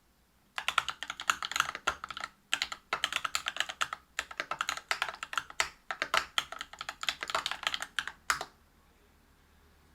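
Fast typing on a Whale 75 mechanical keyboard with lubed Cobalt POM linear switches, a brass plate and PBT keycaps: quick runs of keystrokes with short pauses, stopping about eight seconds in.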